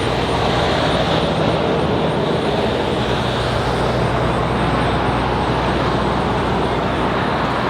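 Steady rumble of machinery running, an even noise with a low, constant engine-like hum.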